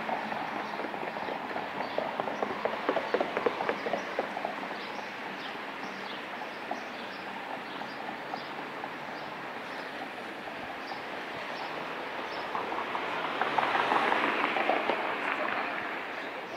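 Bicycle ride in city traffic. For the first few seconds the bike gives off quick rattling and clicking, then a steady rush of road and wind noise takes over and grows louder about 13 seconds in.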